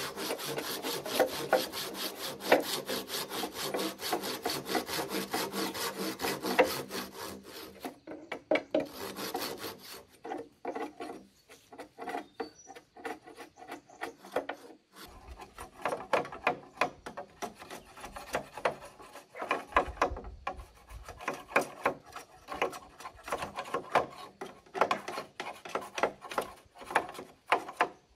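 A hand tool scraping or rasping on wood in quick, even strokes, which thin out after about eight seconds into slower, irregular strokes with short pauses.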